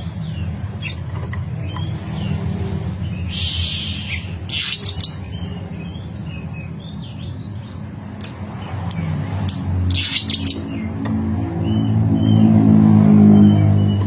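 Oriental magpie-robin (kacer) singing: short whistled phrases with two spells of loud, harsh rasping notes. A low engine rumble runs underneath and grows louder near the end.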